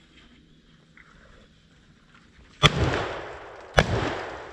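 Two shotgun shots about a second apart, a little past halfway, each followed by a long rolling echo that dies away.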